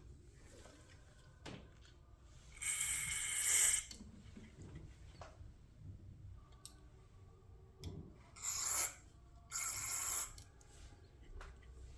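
Three short hissing sprays, one about three seconds in and two close together near the end, cleaning out the passages of a lawnmower carburetor, with light clicks of handling parts between them.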